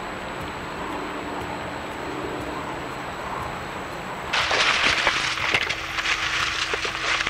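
Steady hiss, then from about four seconds in a loud, dense crackling of dry leaves and twigs as a mountain lion tugs at a deer carcass on the forest floor.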